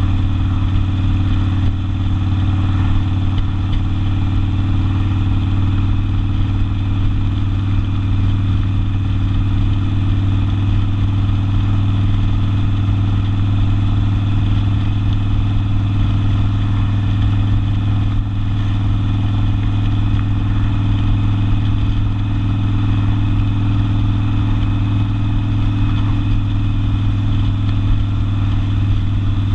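Harley-Davidson Sportster V-twin with open exhaust, running at a steady engine speed with no revving up or down.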